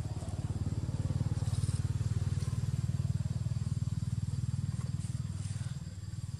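A low engine rumble with a rapid, even pulse, like a small motorbike engine running. It swells and then fades after about five and a half seconds.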